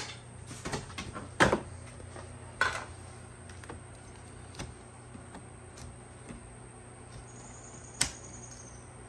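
Hands twisting off an ATV's metal radiator cap: a few sharp clicks and knocks, the loudest about a second and a half in and near the end.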